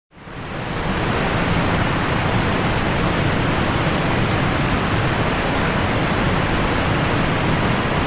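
Steady rushing of a large waterfall, the falling water making a dense, even noise that fades in over about the first second and then holds.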